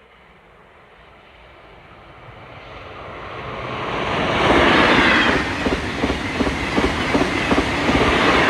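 A train approaching and passing close by: a rumble that grows steadily louder over the first four seconds, then a fast, even clickety-clack of wheels over rail joints as the cars go past.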